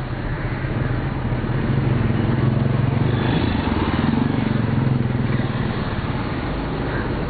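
A motor vehicle's engine running with road noise, a steady low hum that grows louder in the middle and eases off again.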